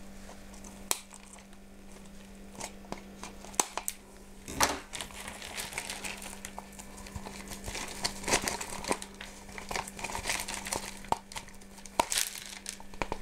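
Irregular crinkling and crackling with small snaps as a Phalaenopsis orchid is worked free from its pot by hand, pulling at moss, roots and pot.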